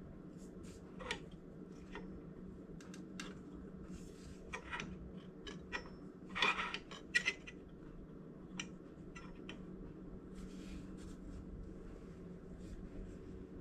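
Light metallic clicks and scrapes of a steel square and the belt grinder's steel tool rest being handled and set against the platen, with the loudest cluster of clinks a little past halfway, over a steady low hum.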